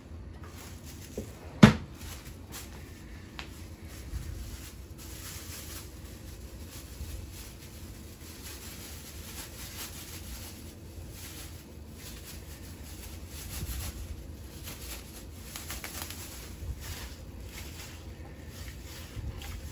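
Quiet kitchen handling sounds, with one sharp knock about two seconds in. Near the end, faint sounds of a gloved hand working chicken strips in a dish of egg wash.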